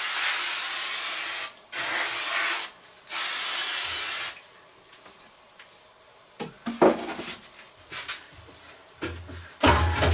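Aerosol can of silicone spray hissing in three bursts, broken by two short pauses, as the tire bead is lubricated for mounting; the spraying stops about four seconds in. After that come a few scattered knocks and low thuds.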